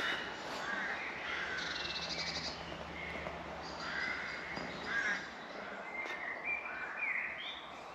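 Several woodland songbirds singing, short overlapping phrases and whistled glides, with a fast trill about two seconds in.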